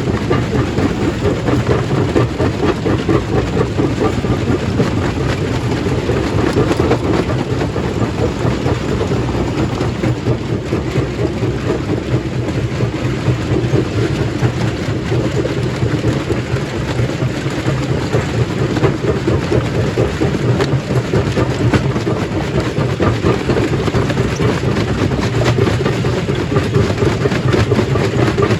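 Stone crushing machine running steadily and loudly: a heavy mechanical rumble under a dense, continuous rattle and crackle of rock being crushed.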